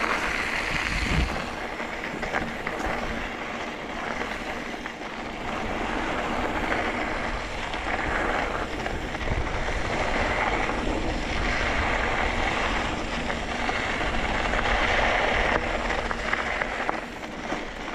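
Wind gusting over the microphone: a steady rushing noise with a low rumble that swells and eases every few seconds.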